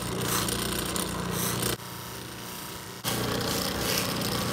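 Bench-motor buffing wheel running with a steady hum while a CA-glue-finished wooden pen blank is pressed against the spinning wheel, a continuous rubbing hiss as the finish is polished. About two seconds in it goes quieter for about a second, then returns.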